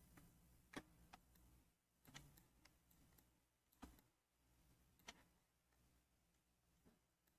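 Near silence, broken by four faint, sharp clicks spread a second or so apart, typical of a computer mouse being worked while the map view is moved.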